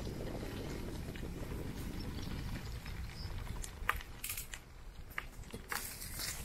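Low rumble of wind and tyres from riding a bicycle, easing off about halfway, then a few irregular sharp clicks and ticks.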